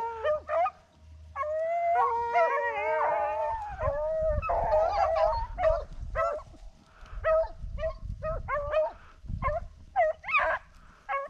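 Rabbit-hunting hounds baying on a rabbit's trail, more than one dog at once: long drawn-out howls at first, then quicker short yelps in the second half.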